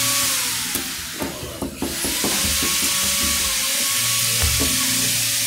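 Steady loud hiss like static, with a faint high tone under it. About a second and a half in, the hiss drops out briefly amid a few clicks, then comes back.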